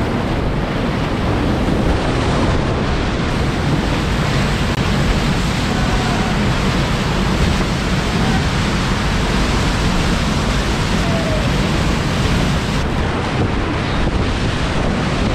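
Loud, steady rush of whitewater rapids heard up close from a kayak in a narrow rock canyon, the churning water filling every frequency with a deep, constant roar-like rumble.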